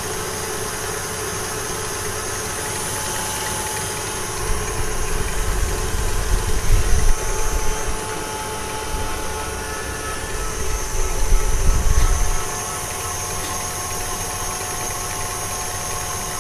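Electric mixer running steadily, beating a cream cheese filling until smooth. Its low rumble grows louder twice, from about four to eight seconds in and again from about ten to twelve seconds.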